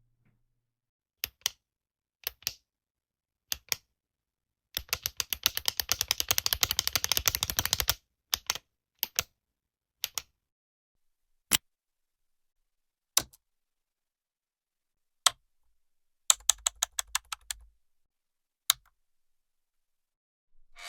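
Typing on a keyboard: a few scattered key presses, then about three seconds of fast continuous typing, then more scattered single keystrokes and a short quick run of keys near the end.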